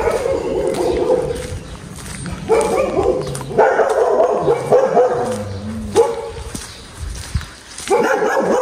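A dog barking in several loud spells of barks, with short gaps between them.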